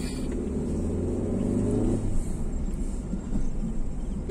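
Steady low rumble of road and engine noise inside the cabin of a moving Maruti Ertiga.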